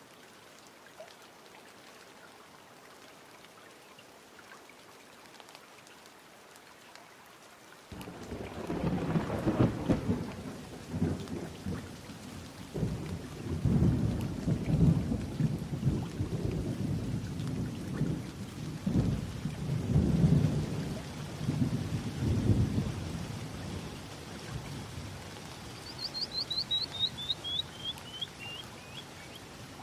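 Rain hiss, then from about eight seconds in a thunderstorm's rolling thunder, rumbling in repeated swells. Near the end a bird gives a quick run of chirps that step down in pitch.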